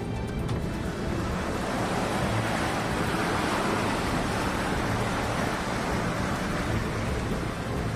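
Steady rush of floodwater churned up around a vehicle driving through a waterlogged street, with rain, heard from inside the vehicle.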